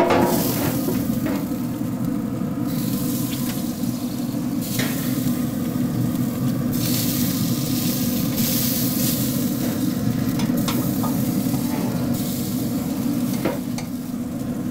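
Steady sizzling hiss from a hot prime rib roast as it is lifted off the pellet grill's grates with meat claws, swelling and fading every few seconds, with a few light metal clicks.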